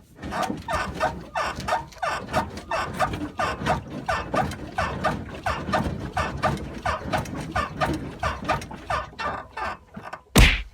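Front suspension of a Chevy Trailblazer squeaking rhythmically as the front end is bounced up and down by hand, about three short squeaks a second, with no clunk from the freshly tightened sway bar end links. A brief louder noise comes near the end.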